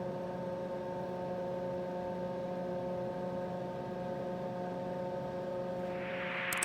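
A PC running, with a steady hum of several held tones. Near the end, a short rising hiss and a sharp click.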